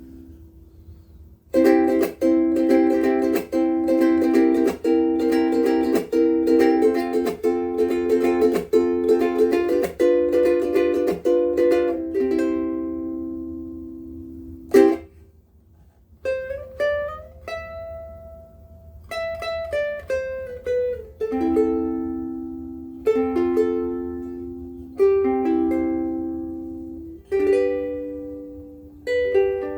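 Kala Metropolitan soprano ukulele of solid Trembesi wood, strung with Worth Brown Lights, being played unaccompanied: steady strummed chords for about ten seconds, a single sharp strum that rings out, then slower picked melody notes and chords.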